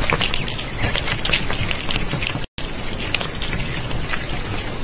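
Dense, crackly pattering noise like rain, broken by a brief gap of silence about two and a half seconds in.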